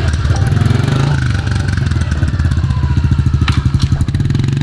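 A Honda CRF110 pit bike's small single-cylinder four-stroke engine running at low revs, its pitch rising and falling slightly, with a sharp click about three and a half seconds in.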